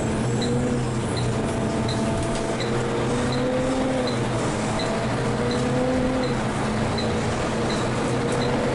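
Cabin sound of a Volvo B12M bi-articulated city bus under way: the diesel drones steadily, with a whine that slowly rises and falls in pitch as the bus speeds up and eases off. A light tick repeats a little under twice a second throughout.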